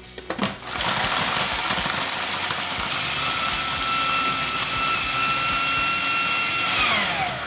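Kenwood food processor running, its blade crushing Oreo cookies into fine crumbs. It starts about a second in with a steady motor whine, which falls in pitch as the motor winds down near the end.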